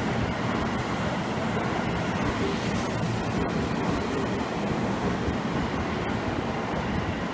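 Seibu 20000 series electric commuter train running past close by, a steady noise of its wheels on the rails.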